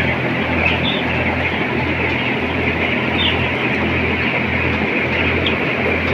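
Inside a climate-controlled broiler house: a dense, continuous din of a large flock of broiler chickens, a few higher chirps standing out, over a steady low throbbing hum of ventilation fans.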